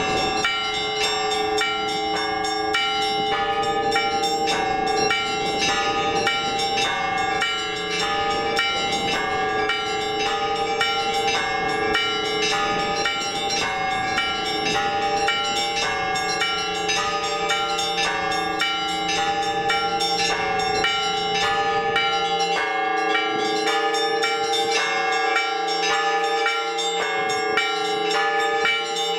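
Orthodox church bells ringing: small bells struck in a fast, unbroken run of strokes over the steady ringing of larger bells.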